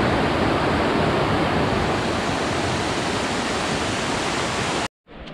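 Rocky mountain stream rushing steadily over boulders. The water sound cuts off abruptly near the end and gives way to quieter wind noise on the microphone.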